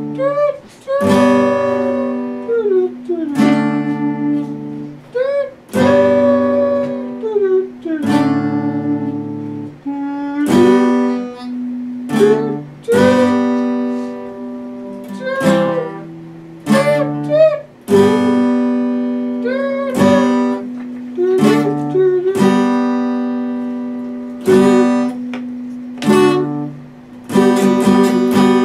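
Epiphone steel-string acoustic guitar played solo: chords struck every second or two and left to ring, with short notes sliding up in pitch between them.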